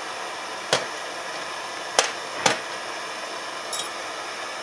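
Three sharp metal-on-metal knocks on a small cast-iron hobby anvil as a nail is worked with tongs: one about a second in, then two close together about two seconds in, followed by a faint light clink.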